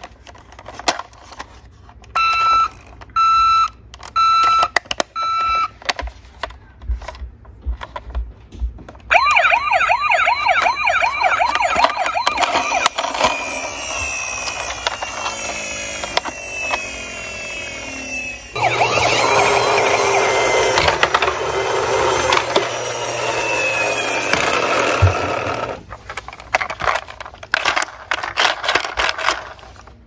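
Toy ambulance's electronic sound effects: four short beeps, then a fast warbling siren for about ten seconds, then a louder siren for several seconds more. Clicks and rattles of the plastic toy being handled come before and after.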